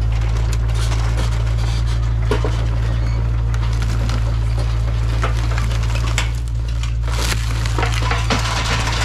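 Kubota KX057 mini excavator's diesel engine running steadily while its grapple claw crushes and drags the wrecked minibus's metal body and frame, with a constant crunching, scraping and clattering of sheet metal and debris.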